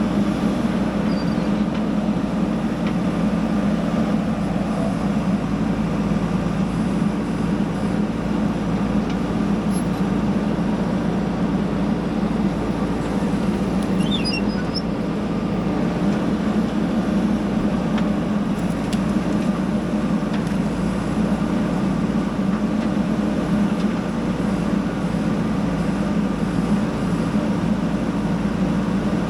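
Diesel engine of a JCB backhoe loader running steadily at work, a constant low hum.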